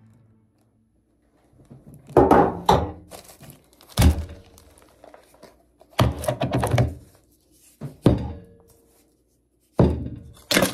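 Household and painting supplies, including an aluminium pan, a metal bowl, a plastic lid and paper rolls, set down one after another on a wooden tabletop. It is a string of about eight thunks, some leaving a short ringing tone.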